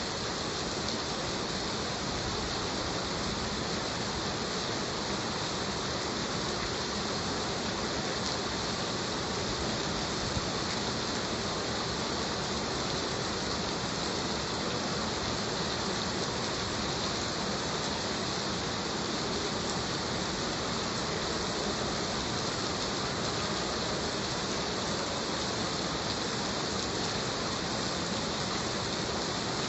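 Heavy rain falling steadily as an even, unbroken hiss.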